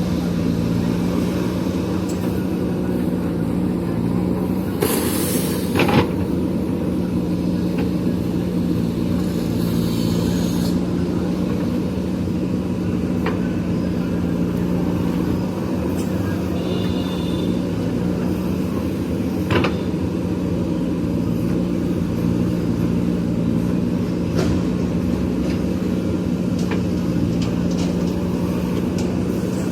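JCB backhoe loader's diesel engine running steadily while digging, with a few sharp knocks, the loudest about six seconds in.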